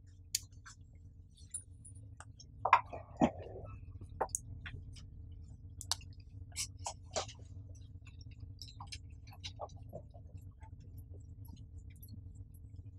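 A whiteboard being wiped with an eraser and then written on with a marker: scattered quiet taps, squeaks and short rubbing strokes, a few louder ones about three seconds in, over a faint steady room hum.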